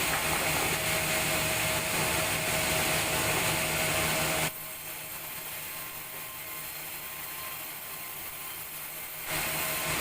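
Sawmill saw machinery running steadily, louder for the first four and a half seconds, dropping suddenly, then louder again near the end.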